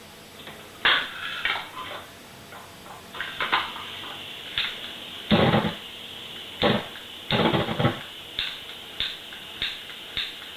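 A lighter being struck over and over without catching, to light a small handheld gas torch: about a dozen sharp, irregular clicks, with two longer rasping bursts around the middle and later on.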